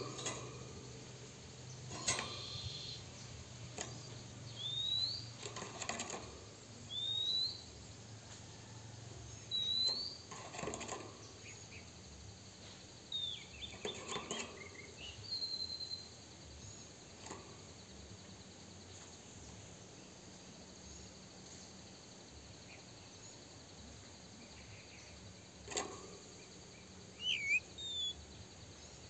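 Male oriental magpie-robin giving short, sparse upslurred whistled notes with gaps between them, and a few more notes near the end. A few soft thumps come in among the notes as the bird moves about its wire cage.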